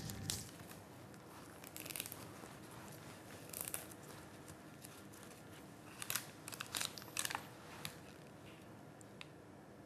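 Faint crinkling and a scatter of short clicks from gloved hands handling a cannula dressing and a plastic syringe packet. The sounds come in small clusters, most of them in the second half.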